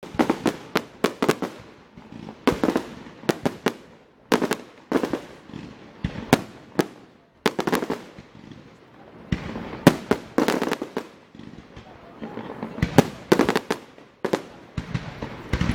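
Fireworks going off: clusters of sharp bangs every second or two, each group trailing off in a rumble.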